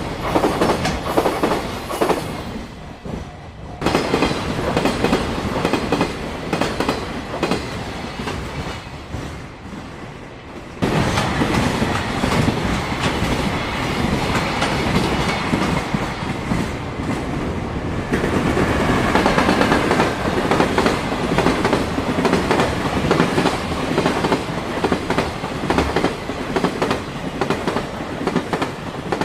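Container freight trains passing at speed, the wheels clacking over the rail joints and the wagons rattling. The sound jumps abruptly in level a few times, as one passing train cuts to another.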